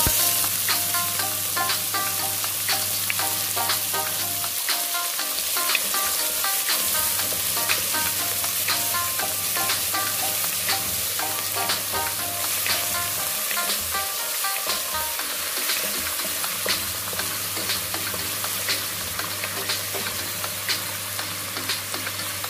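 Diced red onion sizzling in hot oil in a pot, with frequent small crackles, stirred with a wooden spatula.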